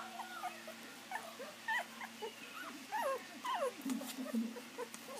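Young puppies whimpering, many short squeaky cries that rise and fall in pitch, with a brief low growl near four seconds in.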